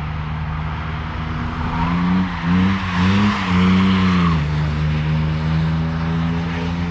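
A car engine passing close by, its note climbing and wavering as it nears and loudest in the middle. Its pitch drops about four and a half seconds in, and it runs on steadily as it goes away.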